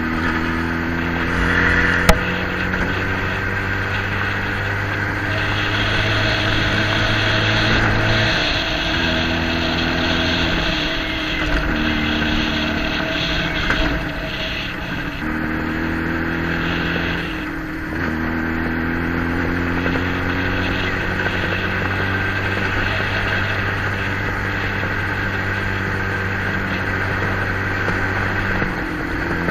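Motorcycle engine running under way, with wind noise; the engine note drops and picks up again several times as the throttle is eased and reopened or gears are changed. A single sharp click about two seconds in.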